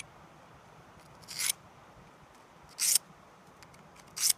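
Carbide edge of a dull router bit rubbed across a coarse DMT credit-card diamond whetstone: three short rasping strokes about a second and a half apart, each swelling and then stopping sharply.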